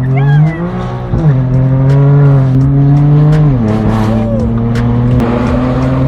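BMW M4 F82's twin-turbo straight-six through a straight-piped AWE track exhaust, droning at a held engine speed that drops sharply twice, like upshifts. Scattered sharp pops sound over the drone.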